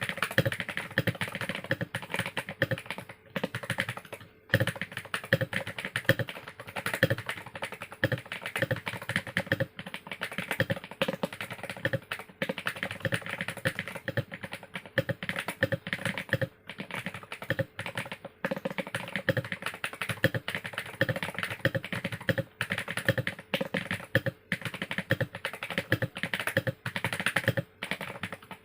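Continuous fast typing on a GMMK Pro mechanical keyboard with an aluminium plate, PE foam and lubed Glorious Panda tactile switches, giving a dense run of deep, poppy keystrokes with short pauses. Recorded through a phone's microphone.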